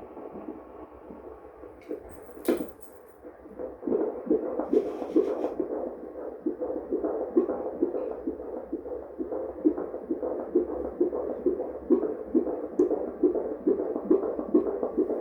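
Fetal heartbeat through a handheld fetal doppler: rhythmic whooshing pulses a little over two a second, about 136 to 137 beats a minute. It starts faint and unsteady while the probe searches, with a click about two and a half seconds in, then locks on strongly about four seconds in.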